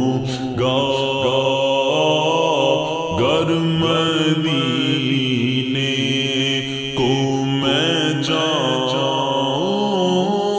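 Wordless vocal backing of an Urdu naat: voices chanting a gliding melody over a steady hummed drone.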